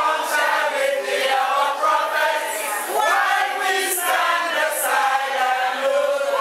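A crowd singing together, many voices at once.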